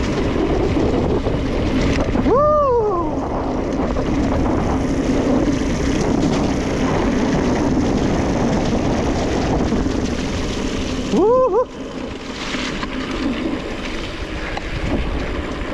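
Electric mountain bike's tyres rolling over fallen leaves on a wet trail, a steady rustling crunch with wind on the microphone and a low steady hum. Short swooping pitched squeals cut in about two seconds in and again near eleven seconds.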